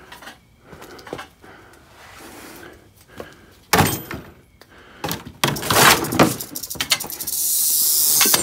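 Things being shoved and dropped on a concrete garage floor, with a loud crash about four seconds in and more clattering near six seconds. From about seven seconds a steady high buzz sets in: a rattlesnake rattling.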